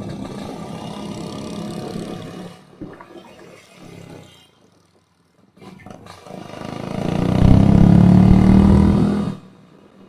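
Yamaha RX-King two-stroke single engine running through an aftermarket underslung exhaust, revved in two bursts; the second swells up louder and cuts off sharply about nine seconds in. The exhaust gives the strange sound that the owner puts down to a badly set header pipe.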